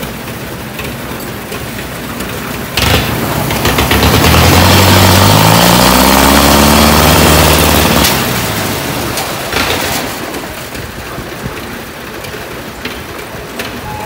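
Engine of the concrete-lift machine running, then suddenly revving up hard about three seconds in as it hauls a load of concrete up to the roof. Its pitch climbs and holds as the loudest part for about five seconds, then drops back to a steady run.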